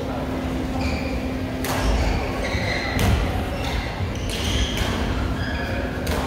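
Badminton play in a large hall: sharp racket-on-shuttlecock strikes and short sneaker squeaks on the court floor, over a steady low hum.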